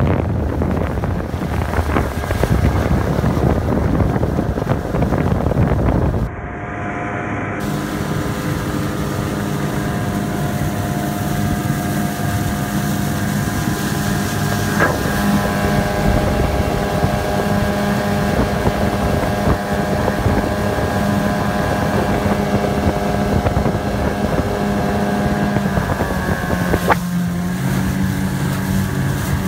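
8 HP Yamaha two-stroke outboard running steadily at about half throttle, pushing a small skiff along, with wind buffeting the microphone for the first several seconds. Near the end the engine note drops as the throttle is eased back.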